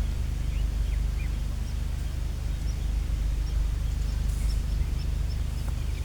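Small birds chirping faintly over a steady low rumble, with a quick series of short high chirps near the end.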